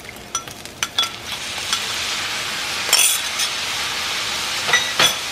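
Seasoning sauce sizzling as it is poured onto hot fried rice in a metal pan: a steady hiss that builds about a second and a half in. A wooden spatula scrapes through the rice, with a few sharp clinks against the pan and bowl, two of them louder near the middle and the end.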